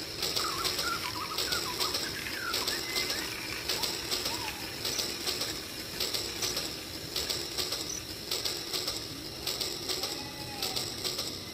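Toy electric train running along its track, with a steady motor hum and uneven clicking from the wheels on the rails. Birds chirp in the background, mostly early on.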